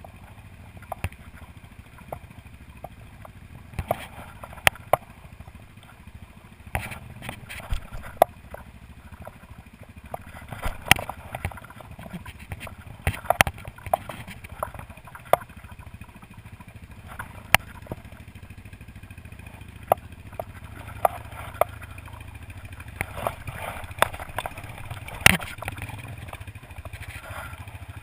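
An ATV engine running steadily at low revs, with many sharp, irregular knocks and clatters over it; the loudest knock comes near the end.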